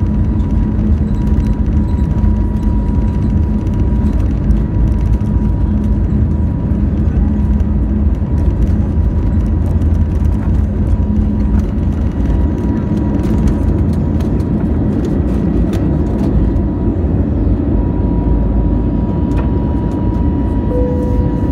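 Airbus A320neo's Pratt & Whitney geared turbofan engines at takeoff thrust, heard inside the cabin: a loud, steady rumble with a steady hum and a higher whine over it.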